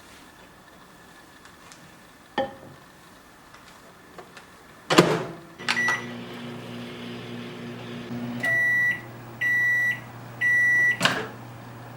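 Microwave oven in use: a light knock, then the door shut with a loud clack about five seconds in, a short keypad beep and the oven starting to run with a steady hum. Three long beeps follow, then the door pops open with another clack near the end.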